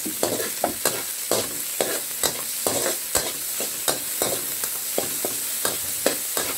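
Metal spatula scraping and knocking against a metal wok, about three strokes a second, while onion, garlic and tomato sizzle steadily in hot oil.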